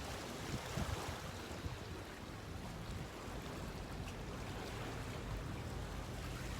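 Steady wash of sea water and wind noise with no distinct events.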